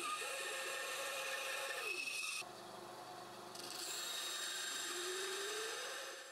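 Benchtop band saw cutting through the end of a laminated wooden hammer handle: a steady rasping saw noise over the motor's hum. The hum sags in pitch as the blade bites into the wood and rises again, and the sound is quieter for about a second midway.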